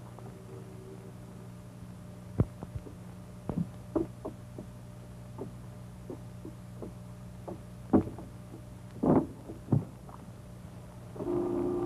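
Irregular wooden knocks and bumps as men climb into a wooden rowboat, over a steady low hum; a short pitched sound comes in near the end.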